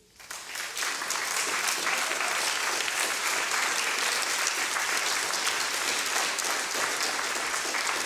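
Audience applauding, swelling within the first second and then holding steady.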